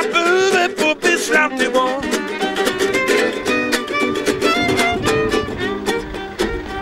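Violin playing a melody over a small acoustic guitar strummed in a steady rhythm: an instrumental passage of a folk song with no singing.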